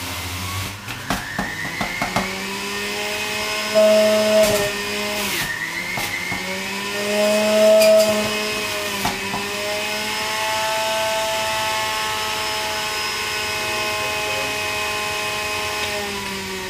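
Centrifugal juicer's motor running with a steady whine while produce is pressed down its feed chute. The pitch sags briefly twice, about five and nine seconds in, as the motor takes the load, and it is loudest around four and eight seconds in.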